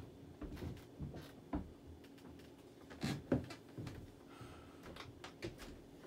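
Casablanca Panama II ceiling fan running with a low, steady hum, under scattered light knocks and clicks, the loudest a little after three seconds in.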